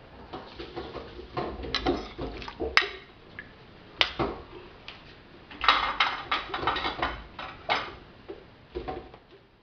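Metal spatula clinking and scraping against a stainless steel wok while stirring a liquid sauce, in irregular bursts with short pauses between.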